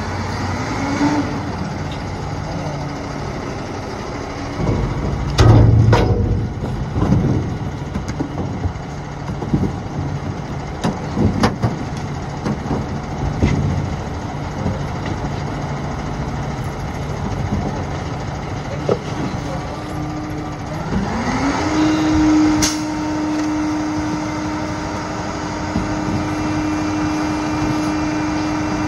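Garbage truck's diesel engine idling, with sharp clanks and knocks. About two-thirds of the way through, the engine speeds up and holds a steady higher note.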